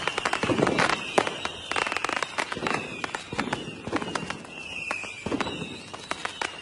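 Fireworks display: aerial shells bursting with deep booms and dense crackling reports. A high whistle runs through it and slides down in pitch over and over.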